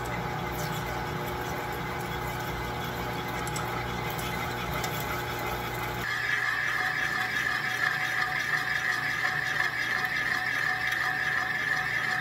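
Metal lathe running with a large metal plate spinning in the chuck, first with a drill bit feeding into the centre of the plate. About halfway through the sound changes abruptly to the boring bar cutting the hole larger, with a steady high-pitched squeal over the machine's hum.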